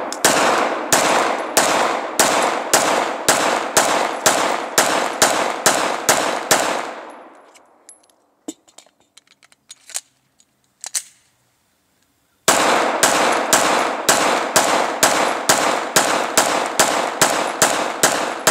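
Glock 19 Gen 4 9mm pistol fired rapidly with PMC 124-grain rounds, about three shots a second, each shot echoing. The pistol cycles without a hang-up. A pause of about four seconds holds only a few faint clicks, then another fast string of shots follows.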